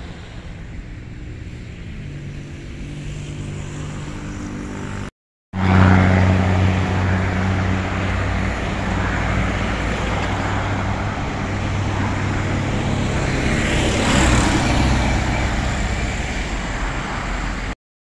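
Steady engine noise with a low hum. It breaks off abruptly about five seconds in and returns louder, swells near the end, then cuts off just before the end.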